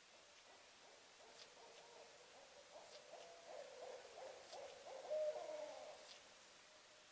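An owl calling: a quick run of hooting notes that builds in loudness for a few seconds, is loudest a little past the five-second mark, then fades out.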